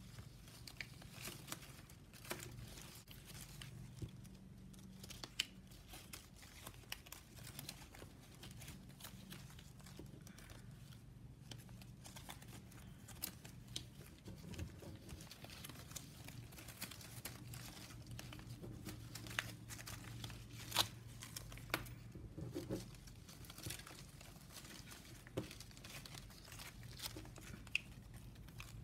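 Thin plastic packaging straps being handled and woven: faint crinkling with scattered light clicks and ticks as the strips are slid and tucked.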